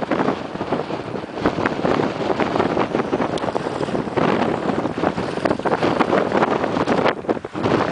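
Strong wind buffeting the microphone: a loud, unsteady rushing roar that dips briefly about seven seconds in.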